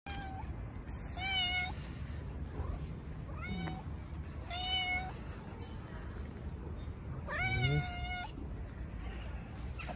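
Tuxedo cat meowing four times in short calls, the last one, near the end, the longest.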